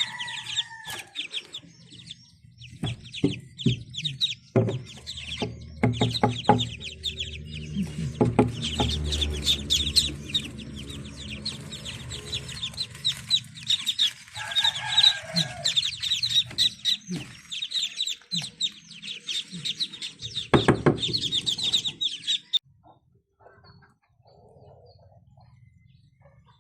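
A brood of ducklings peeping rapidly and continuously in a dense, high chorus, with scattered knocks. The peeping cuts off suddenly near the end.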